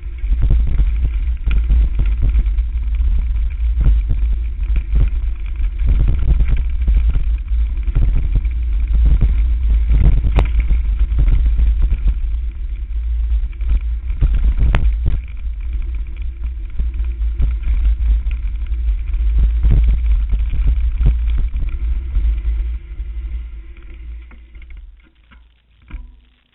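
Wind buffeting the camera's microphone with a steady low rumble during a fast mountain-bike descent on a dirt trail, with frequent knocks and rattles from the bike jolting over bumps and roots, two sharper knocks standing out. The noise fades away near the end.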